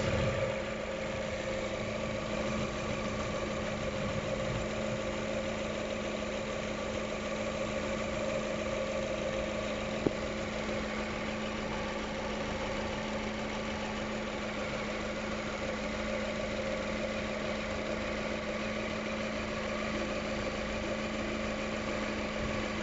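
Lada Vesta 1.8 engine idling steadily with a constant whistle, which the owner traces to a roller in the timing-belt area. A single sharp click about ten seconds in.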